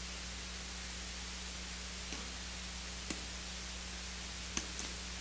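Steady background hiss with a faint low electrical hum, broken by a few faint short clicks about three seconds in and again near the end.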